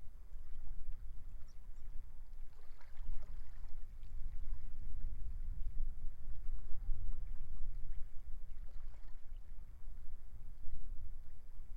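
Strong wind buffeting the microphone in a gusty, uneven low rumble, over a faint wash of sea waves on the shore.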